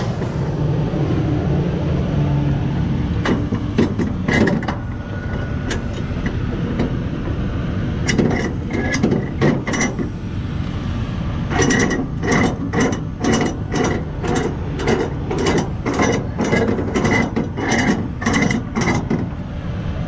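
Handling noise of a cargo strap and its metal ratchet binder on a flatbed trailer's rail. From about halfway there is a steady run of sharp metallic ratchet clicks, about three a second, as the strap's ratchet is worked.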